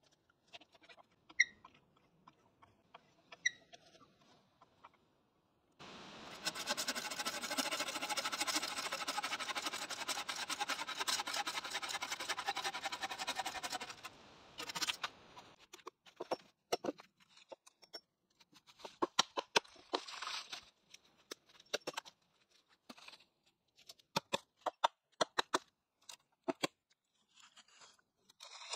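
Green-wood work with hand tools: a few light scrapes of a drawknife on a log. Then about eight seconds of steady bow-saw cutting through a branch. Then a run of sharp knocks and cracks as the branch is trimmed with a hatchet.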